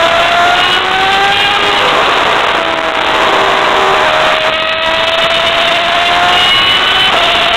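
Formula One car's V8 engine running at speed, heard from under the car's nose over heavy wind and road noise. Its pitch climbs, breaks about two seconds in, climbs slowly again and changes near the end.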